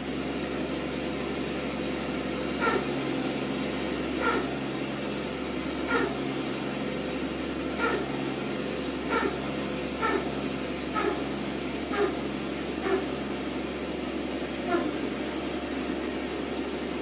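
Turbocharged engine running with its turbo compressor in surge: a steady engine noise and a thin high whine, broken by about ten short whooshes spaced a second or two apart, as air pulses back out through the compressor wheel. This is the sign of the compressor working past its surge line on the compressor map.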